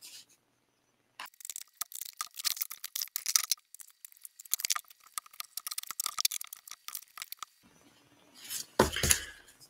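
Crinkling and crackling of plastic packaging being handled, as when a comic book is taken out of its bag, in two stretches of quick small clicks with a short pause between. A brief thump comes near the end.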